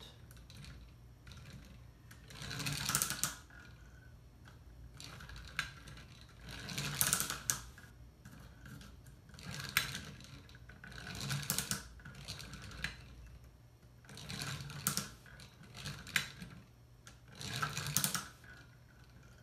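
Laser-cut plywood parts of a wooden mechanical box model clicking and clattering as they are handled and worked, in short clusters of clicks every second or two.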